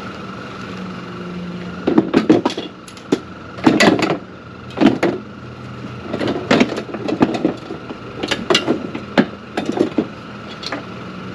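Irregular knocks and rattles of plastic and metal fishing gear being handled and set down at a pickup truck's tailgate, over a steady low hum.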